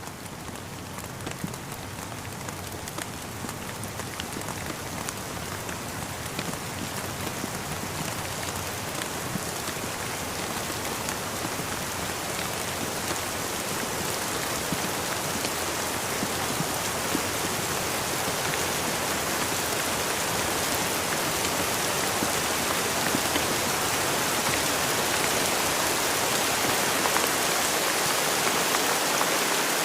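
Steady rain falling, an even hiss with scattered small drop taps, growing gradually louder through the whole stretch.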